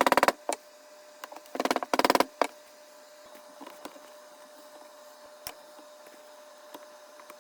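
A small handheld power tool buzzes in two short bursts, one at the start and another about two seconds in, cleaning up edge details on a wooden worktop. After that there is only faint room sound with a few light clicks.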